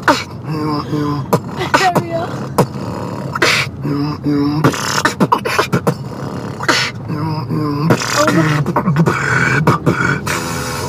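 Human beatboxing: sharp mouth-made drum hits at an uneven rhythm, with short hummed, pitched bass and melody notes woven between them.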